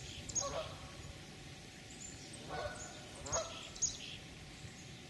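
Canada geese honking, a few separate honks, with short high chirps of small birds in between.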